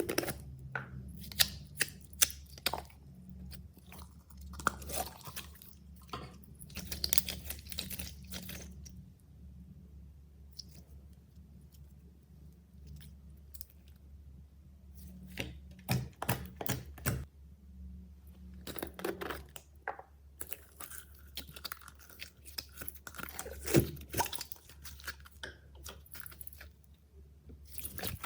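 Slime being squished and kneaded by hand: irregular bursts of sticky clicks and crackling pops with short quiet gaps between them.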